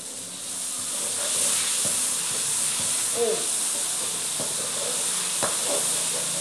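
Chilli-shallot-garlic balado spice paste sizzling in hot oil in a large wok, stirred with a metal spatula that scrapes the pan a few times.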